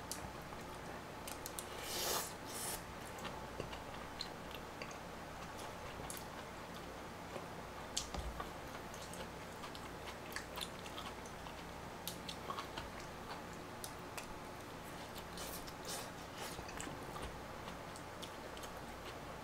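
Faint close-up eating sounds: a person chewing mouthfuls of malatang, the spicy Sichuan noodle soup, with scattered light clicks of utensils against the bowl. A brief louder noise comes about two seconds in.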